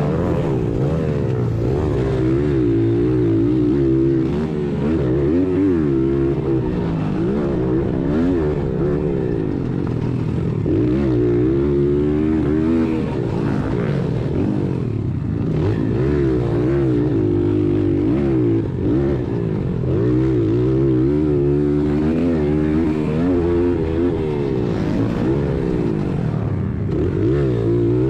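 1996 Honda XR100R's air-cooled four-stroke single-cylinder engine revving up and dropping back again and again as it is ridden hard around a dirt motocross track, heard from on board the bike.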